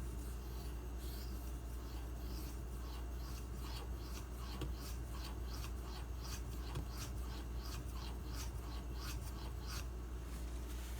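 Knife blade stroked across a 4000-grit whetstone, a soft scraping rasp repeated in quick strokes about three a second, over a steady low hum.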